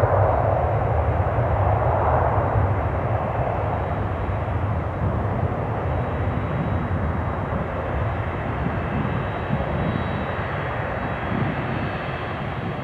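Boeing 747-400's four jet engines at takeoff thrust during the takeoff roll: steady, loud jet noise with a deep rumble, slowly fading as the aircraft accelerates away down the runway.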